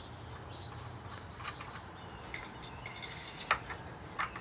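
A few light clicks and clinks of something being handled, the loudest about three and a half seconds in, with birds chirping in the background.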